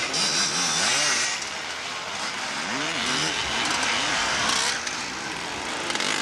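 Motocross motorcycle engines running hard as riders pass one after another, a raspy buzz whose pitch rises and falls with the revs. It is loudest in the first second or so, and another bike's revs climb and drop about three to four seconds in.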